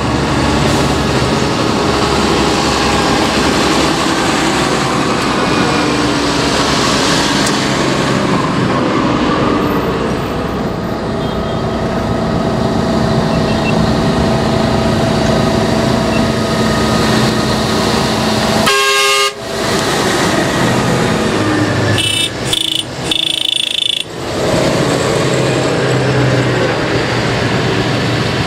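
A procession of modern farm tractors, including JCB Fastracs, drives past one after another with diesel engines running steadily. A vehicle horn toots briefly about two-thirds of the way through, and a few more toots follow a few seconds later.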